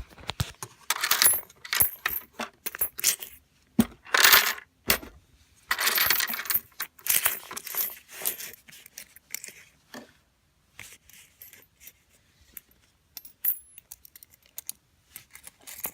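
Coins clattering and rattling down through a LEGO brick coin mechanism as they are returned, in several bursts of clatter in the first half that thin out into scattered faint clicks.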